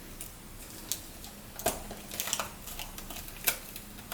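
Scattered light clicks and taps of a plastic container and packaging being handled, about half a dozen, irregularly spaced.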